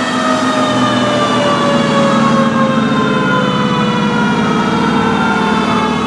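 Fire engine sirens on passing fire trucks: one siren's pitch falls slowly and steadily while another wails up and down, over the low running of the trucks' engines.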